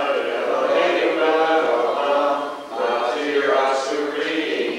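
A boy's voice chanting liturgy in a sung recitation, long held notes with short breaks between phrases.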